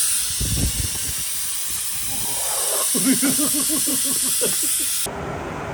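Steady loud hissing, like spray or steam in a spa, with a short burst of voice over it about three seconds in; the hiss cuts off abruptly near the end.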